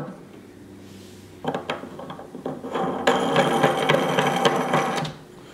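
Plastic bulkhead fitting being hand-tightened through a glass aquarium wall, its nut spinning on the threads with a dry, rasping scrape. The scraping starts about a second and a half in and is densest over the last two seconds.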